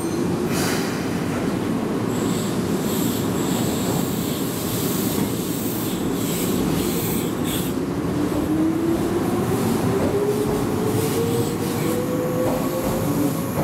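Keihan 6000-series electric commuter train pulling out and accelerating past, with a motor whine rising steadily in pitch over the second half, over the rumble of wheels on rail.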